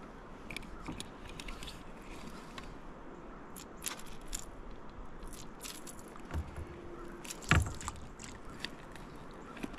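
Small clicks, scrapes and rattles of a fish being handled and a lure being unhooked in a kayak, with one louder knock about three quarters of the way through.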